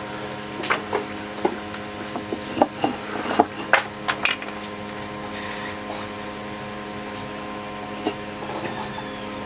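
Tools and pieces of wood being handled: a quick run of sharp knocks and clinks in the first half, a few more near the end, over a steady hum.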